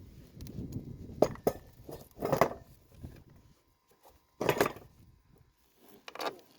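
Scattered handling noises: two sharp knocks, then three short rustling, scraping bursts with quiet between, as hands work on the dish mount and its cable.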